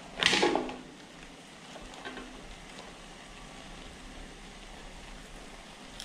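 Noodle stir-fry sizzling in a hot wok, with a brief louder burst just after the start, then a steady sizzle.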